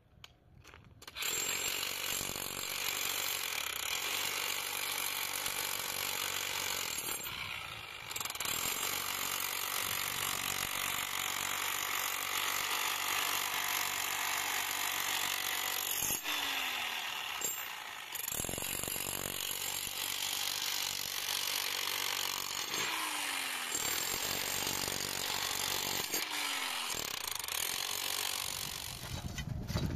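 Corded electric chipping hammer with a chisel bit hammering into concrete, breaking it away around upright rebar. It runs steadily from about a second in, stopping briefly several times, and at some stops the motor winds down with a short falling whine.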